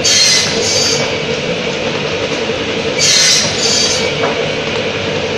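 Automatic sawdust block cutting machine running with a steady hum, its saw screeching through compressed sawdust blocks twice, about three seconds apart, each cut lasting about a second.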